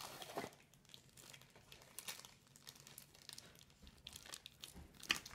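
Small plastic zip bags crinkling faintly as they are handled, with light scattered ticks and rustles from the cardboard accessory box.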